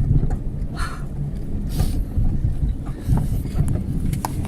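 A 4x4 vehicle's engine running with a steady low rumble, with a couple of brief hissing noises about one and two seconds in.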